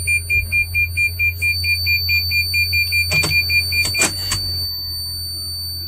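High-pitched whistle inside a van's cabin, pulsing rapidly at about six times a second, which comes whenever the van is switched on and does not go away. After a couple of clicks about three and four seconds in, the whistle stops.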